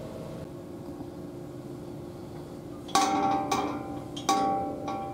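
Four sharp metallic knocks from about three seconds in, each ringing briefly at the same clear pitch, as a hollow metal railing does when bumped.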